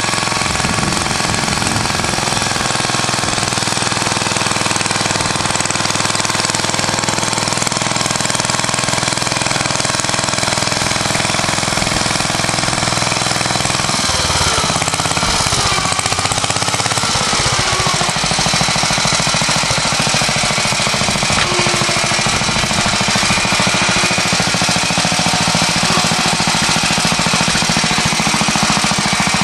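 1947 Clifford Mk1 two-wheel tractor's J.A.P. engine running steadily under load while ploughing, with a fast, even firing beat.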